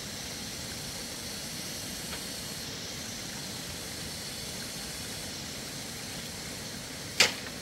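Steady outdoor background hiss, then a single sharp knock near the end.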